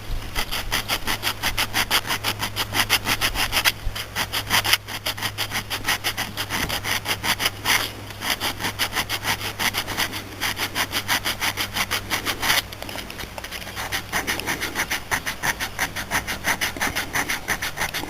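Sandpaper rubbed back and forth over the lead-plugged vacuum port holes on a Motorcraft two-barrel carburetor body, smoothing the plugs flush. The rasping strokes come quick and even, about five or six a second, and turn softer about two-thirds of the way through.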